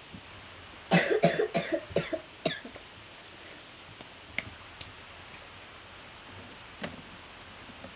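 A person coughing several times in quick succession, starting about a second in, followed by a few light, separate clicks.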